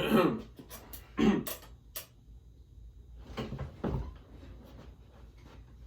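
A person making silly noises with the voice and mouth: two short voice-like sounds that fall in pitch, one at the start and one about a second in, with sharp clicks between them, then more brief voice-like sounds near the middle.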